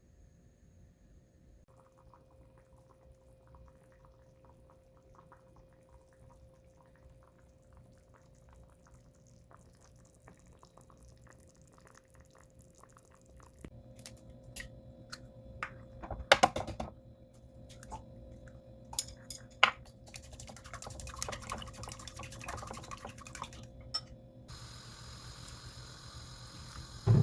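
Kitchen cooking sounds: faint ticking and light handling at first, then utensil clicks and knocks with liquid being poured. About three-quarters of the way through, a steady sizzle-like hiss sets in.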